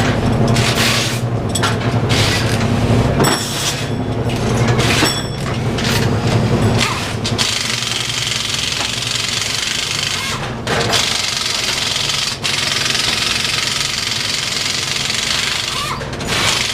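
A steady mechanical hum with a run of short clicks and clatter, giving way about seven seconds in to a steady hiss.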